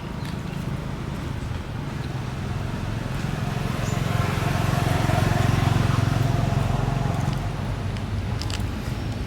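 A motor engine running with a steady low hum, growing louder toward the middle and then easing off, like a vehicle passing by.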